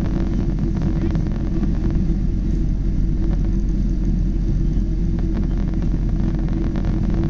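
Steady low rumble of a Boeing 777 airliner's engines and airflow, unchanging throughout.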